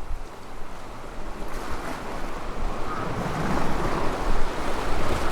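Sea waves washing, with some wind on the microphone; the wash grows louder about three seconds in.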